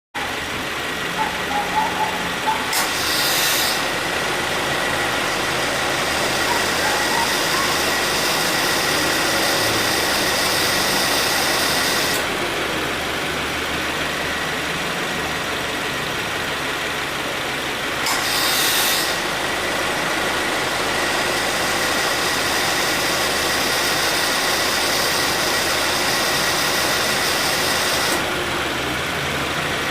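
2017 Subaru Forester idling with its A/C compressor cycling. The compressor kicks in twice, about 3 and 18 seconds in, each time with a harsh noise on engagement, then runs with a hiss for about nine seconds before cutting out. The noise at start-up and while running marks a moderately worn compressor, which the dealer judged normal.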